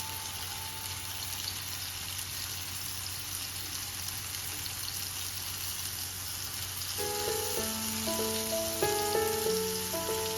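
Food sizzling in a hot pan, a steady crackling hiss. Soft instrumental music comes in about seven seconds in.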